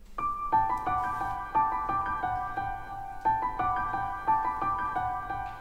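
Background music: a melody of short, high piano notes, each struck and left to fade.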